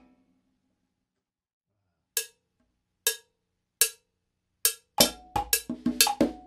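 Congas and a mounted cowbell: the playing stops, and after about two seconds of quiet four single strokes sound, spaced just under a second apart. About five seconds in the full pattern starts again: a one-handed conga tumbao under a modified cascara played with a stick on the cowbell.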